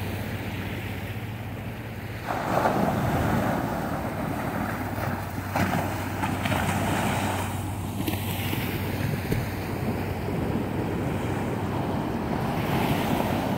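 Small ocean waves breaking and washing up the sand, with wind buffeting the microphone. A wave surges in about two seconds in, and others follow around the middle and near the end.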